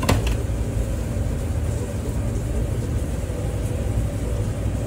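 Steady low background rumble, with a sharp knock right at the start and a fainter one just after.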